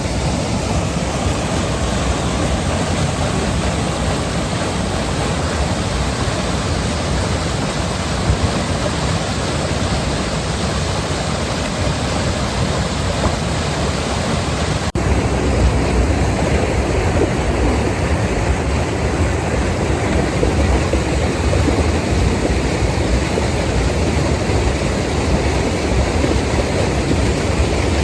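Mountain valley stream rushing over rocks: a steady, even rush of water. It shifts suddenly to a slightly louder rush about halfway through.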